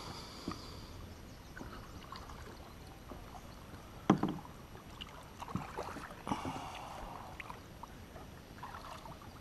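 Kayak paddling on calm water: soft splashes and drips from the paddle strokes, with scattered knocks. The loudest knock comes about four seconds in, and a few lighter ones follow.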